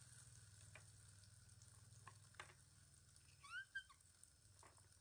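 Food sizzling faintly in a steel wok on a portable gas stove, with a few light clicks of a ladle against the pan and bowl. About three and a half seconds in, a baby macaque gives one short squeak that rises and falls in pitch.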